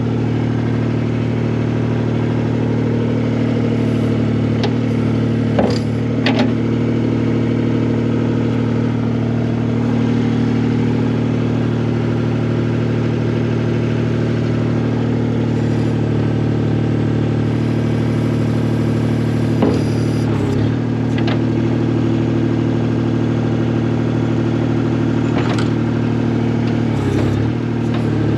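Skid steer engine running at a steady speed, with a few short clicks or knocks over it.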